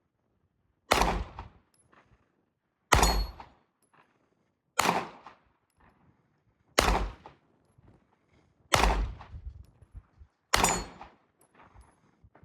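Six pistol shots fired at a slow, even pace, about two seconds apart, each trailing off in a short echo.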